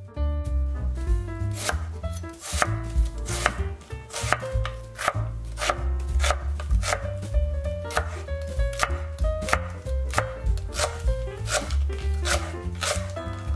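Chef's knife chopping onion and then Korean green onion on a wooden cutting board: a steady run of sharp knife strikes against the board, about two to three a second.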